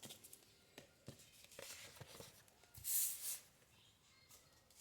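Tarot cards being handled: a few faint light clicks and soft rustling, then a brief papery swish of a card sliding about three seconds in.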